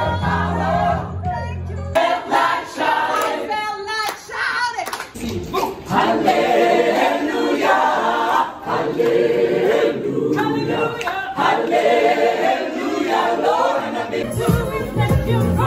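A crowd of people singing together as an informal choir, led in a group singalong. A deep bass sound runs under the voices for the first couple of seconds and returns near the end.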